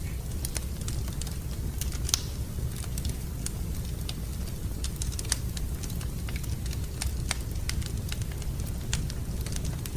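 Fire in a fireplace crackling: irregular sharp pops and snaps, the loudest about two seconds in, over a steady low rumble.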